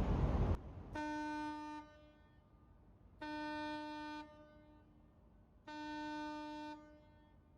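A ship's horn sounding three times, each blast a steady one-note tone of about a second with a brief echoing tail. Just before the first blast, a loud rushing noise cuts off suddenly.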